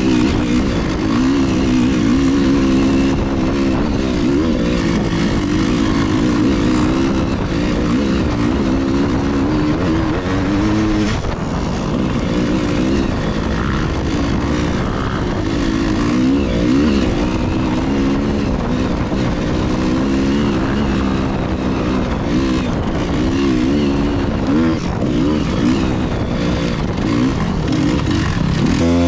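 Dirt bike engine running as the bike is ridden off-road, its pitch rising and falling constantly with the throttle.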